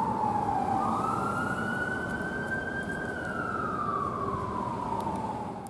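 Fire engine siren on a 2021 Pierce Arrow XT wailing: its pitch slides down, rises over about two seconds, then slowly falls again, over a steady low rumble of engine and traffic.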